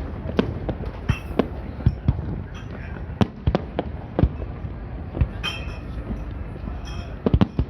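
Fireworks display: firework shells bursting in a rapid, irregular series of sharp bangs, about two or three a second, with a quick cluster of bangs near the end, over a steady background hiss.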